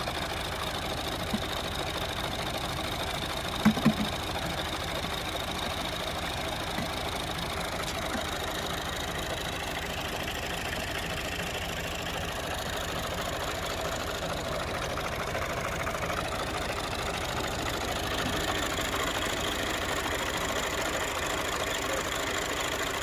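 Tractor's diesel engine idling steadily, with two sharp knocks close together about four seconds in.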